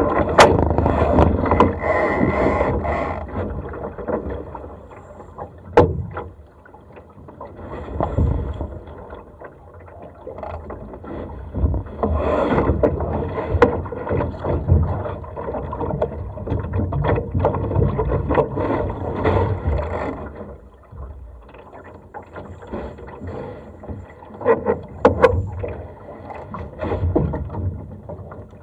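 Water sloshing and slapping against a Laser sailing dinghy's hull, swelling and easing irregularly. A few sharp knocks come about six seconds in and again near the end.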